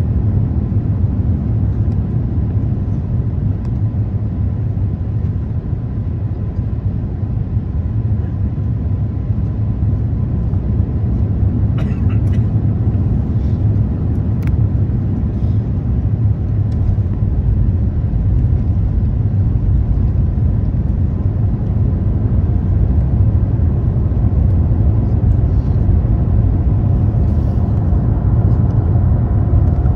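Steady low roar inside the cabin of a jet airliner on its approach, with landing gear lowered: engine and airflow noise. A few faint clicks about twelve seconds in.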